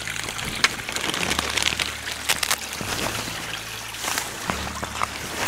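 Steady rain with scattered sharp ticks of drops, and a hiker's footsteps on wet rock and mud.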